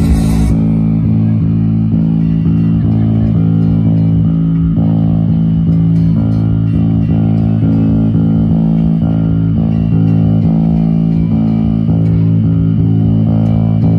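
Electric bass guitar played through a stage rig during a band's line check, repeating low notes in a steady rhythm.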